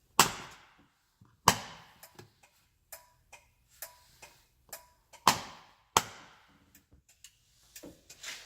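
Clicking of a Kawasaki Mule Pro FXT's add-on turn-signal switch and flasher: four loud sharp clicks, two near the start and two past the middle, with fainter ticks between them.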